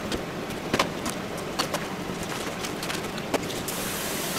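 A handful of short, light knocks and clicks over a steady background hiss: kitchen handling of lettuce and a knife at a plastic cutting board.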